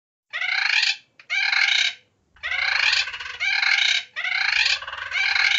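Parrot squawking: a string of loud squawks, about half a second each, some running together in pairs with short pauses between.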